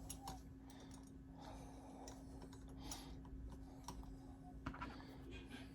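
Faint, scattered small clicks and ticks of small Allen screws and tools being handled against a metal accessory rail as the screws are fitted, a handful of separate clicks spread through, over a steady low hum.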